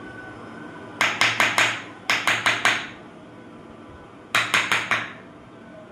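Three quick runs of sharp knocks, four strikes in each at about five a second, each strike with a brief ringing tail. The first run comes about a second in, the second right after it, and the third a little past four seconds.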